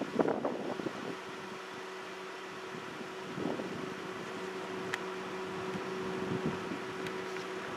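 A steady low hum with wind rumbling on the microphone, in gusts during the first second.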